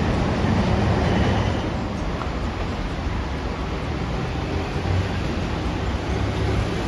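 A train running past with a steady rumble.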